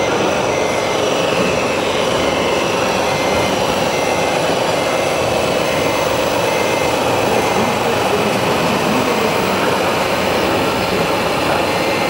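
Steady, loud, noisy din of a large exhibition hall with RC model trucks running, and a faint regular electronic beep about one and a half times a second that stops about seven seconds in.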